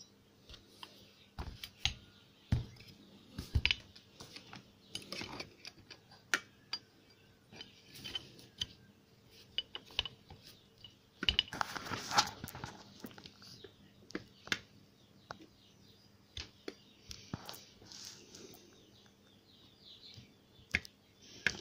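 Handling sounds of homemade forge-burner parts on a desk: scattered clicks, taps and knocks of steel pipe fittings and a copper gas pipe being picked up and fitted together, with a longer scraping, rustling stretch midway.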